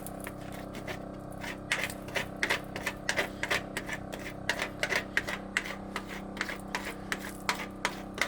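A rapid, irregular series of sharp clicks and taps, several a second, over a steady low hum.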